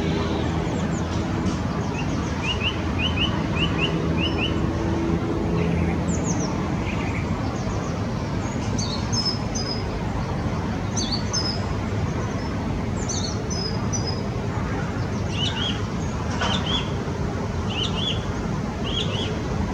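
Small wild birds chirping in short runs of quick notes over a constant low background rumble, with a steady low hum in the first few seconds.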